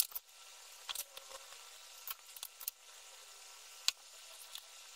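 Light clicks and taps of hands handling small electronic parts, wires and a soldering iron on a wooden desk, with one sharper click near four seconds in.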